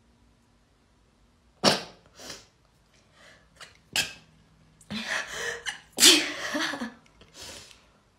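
A woman sneezing repeatedly, the sneezes set off by a nasal swab for a Covid-19 test. A sharp sneeze comes about one and a half seconds in and another about four seconds in, then a run of sneezes with some voiced sound toward the end.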